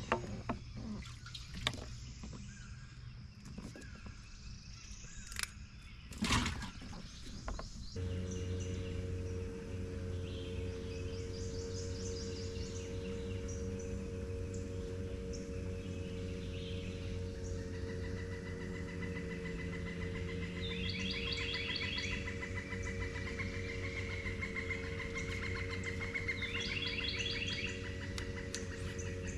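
Birds calling in short, repeated chirping trills over a steady low hum that starts suddenly about eight seconds in. Before the hum there are a few sharp clicks and knocks, the loudest about six seconds in.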